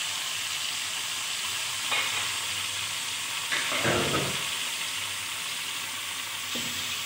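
Hot oil with spices sizzling in a pan as tomato paste is poured in, the sizzle flaring louder about four seconds in when the paste lands. Near the end a spoon knocks against the pan as the stirring begins.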